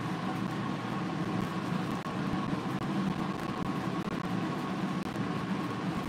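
A steady low mechanical hum with a faint, constant higher whine above it, unchanging throughout.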